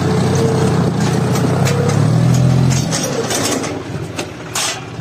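John Deere 5050D tractor's three-cylinder diesel engine running with clattering knocks, its hum dropping to a lower level about three seconds in. A brief hiss comes near the end.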